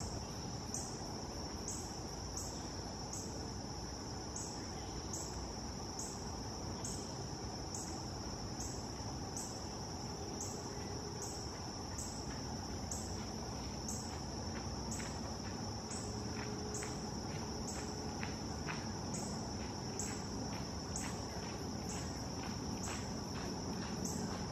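Insects chirping: a steady high trill with a sharper chirp repeating about one and a half times a second, over low background noise.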